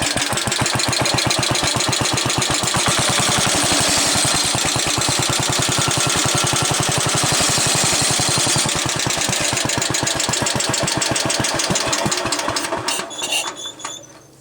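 Single-cylinder cast-iron Briggs & Stratton 9 hp model 23CB engine running with an even firing beat and a knock that the owner takes for a valve or the connecting rod. Near the end it slows and dies away as it shuts down.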